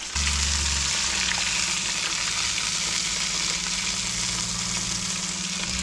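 Whiting fillets in a crushed-potato-chip coating sizzling in a deep fryer's hot oil, which may be a little too hot. The sizzle starts suddenly just after the start and then runs steady, with a low steady hum beneath it.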